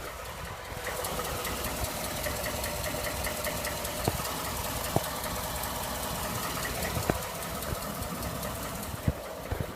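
Ford 5.0 V8 engine of a 2011–2012 F-150 running with a rapid, even ticking knock and a few louder single clicks scattered through. The ticking is the engine knock/tick that Ford says is normal and not fixable.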